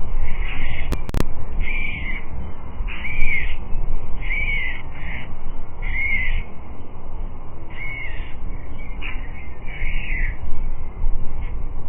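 A bird calling repeatedly: about eight short calls, each arching up and down in pitch, spaced roughly a second apart. A steady low wind rumble and a single sharp click about a second in sit behind them.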